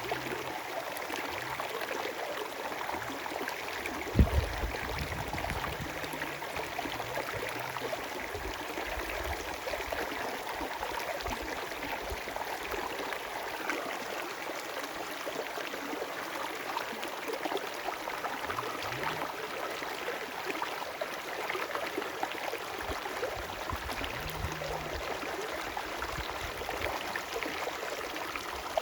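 River water flowing with a steady rushing sound, with one sharp low thump about four seconds in and a few short low rumbles later on.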